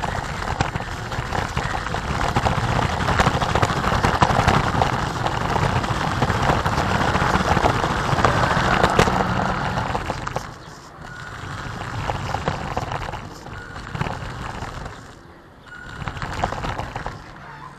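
Homemade RC car running along a rough concrete lane, heard from the car itself: a steady rushing noise of its motor and tyres on the ground, with wind. The noise drops away twice in the second half as the car slows.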